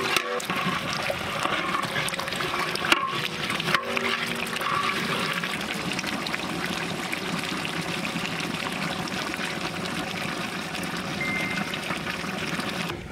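Whole goat boiling in a thick green masala gravy in a large cauldron: steady, dense bubbling with many small pops. The meat has reached the fully boiled stage.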